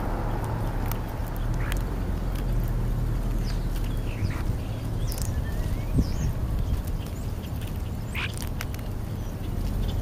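European starlings calling while they feed: scattered short harsh squawks and a few brief gliding whistles, over a steady low rumble.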